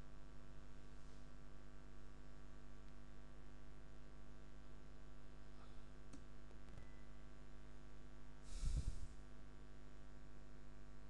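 Steady mains hum and hiss from an idle recording microphone. A few faint clicks come around six seconds in, and a short puff of breath hits the microphone a little under nine seconds in.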